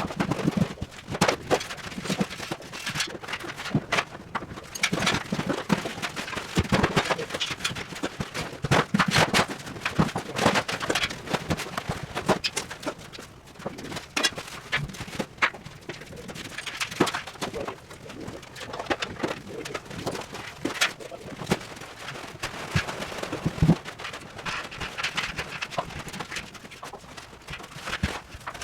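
Demolition clatter: irregular knocks, bangs and rattles of panels and scrap being pulled apart and handled, with no steady rhythm.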